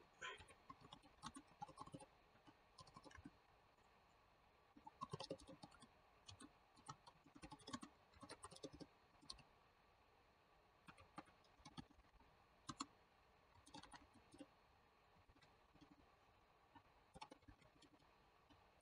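Faint computer keyboard typing: quick clusters of keystrokes broken by short pauses of a second or two.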